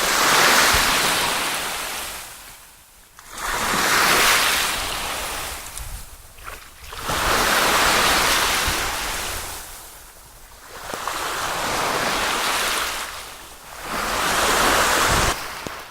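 Waves washing in, rising and falling in five long surges a few seconds apart.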